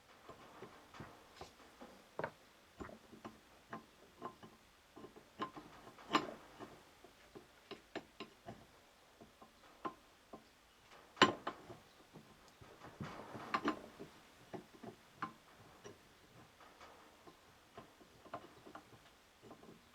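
Irregular small metallic clicks and taps of universal-joint parts being handled and fitted together by hand, the cross, needle bearings and yoke knocking lightly against each other. There is a sharper knock about eleven seconds in and a quick run of clicks shortly after.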